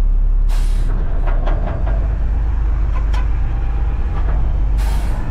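Front-loader garbage truck's diesel engine running with a steady low drone. Two short hisses of air, about half a second in and near the end, with a few light clicks and rattles in between.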